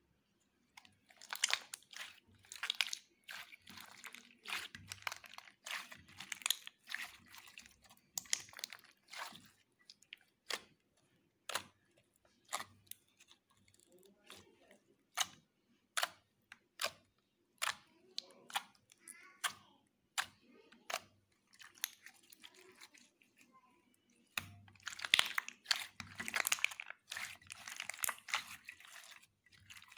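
Slime being squeezed and stretched by hand, giving sharp wet clicks and pops. The popping comes in dense runs over the first ten seconds and again near the end, with slower single pops in between.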